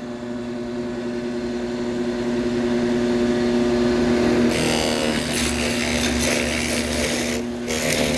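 Drill press motor running with a steady hum. About four and a half seconds in, a 2-inch Forstner bit bites into plywood with a rough cutting noise that lasts about three seconds, eases briefly, and starts again near the end. The spindle is running a little fast for that diameter of bit.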